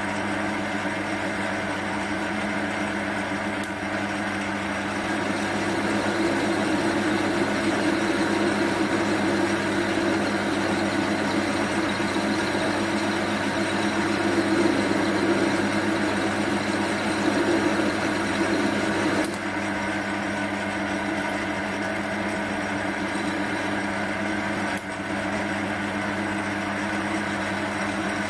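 Small bench lathe's electric motor running steadily with a mains-type hum. It grows louder about six seconds in and drops back about two-thirds of the way through.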